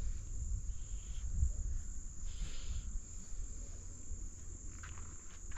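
Insects chirring in a steady high-pitched drone, with a low rumble underneath.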